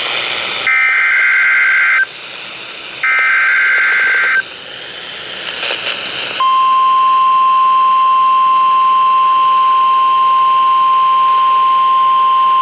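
Emergency Alert System signal off NOAA Weather Radio: two buzzy digital header bursts of about a second and a half each, with radio hiss between them, then the steady single-pitched weather-radio warning alarm tone starting about six seconds in.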